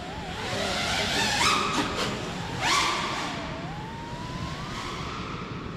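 FPV quadcopter's motors and propellers whining in flight, the pitch wavering, jumping up sharply twice and then climbing slowly near the end.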